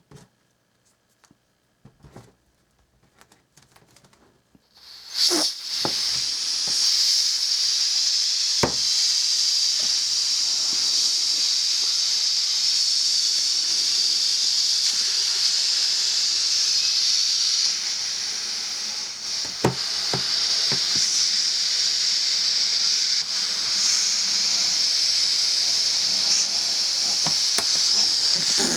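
A steady hiss of rushing air starts about five seconds in and keeps on, with a few sharp knocks along the way, after a few faint clicks.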